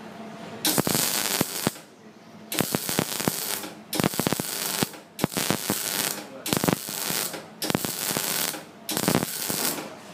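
MIG welding arc from a Delta WIM 210 SEF single-phase welder on mild steel, set to continuous mode, crackling in about seven short runs of roughly a second each with brief gaps as the arc stops and restarts.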